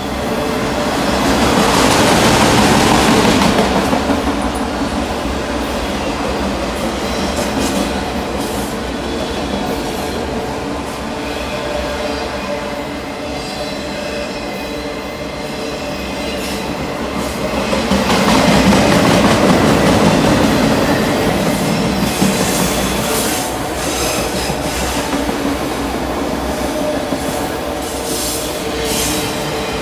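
A freight train of autorack cars rolling past, a continuous rumble and clatter of steel wheels on the rails, heard from inside a parked caboose. It swells louder twice, about two seconds in and again around twenty seconds.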